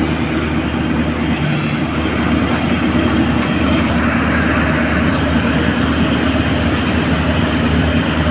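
Crane's diesel engine running steadily, an even low hum.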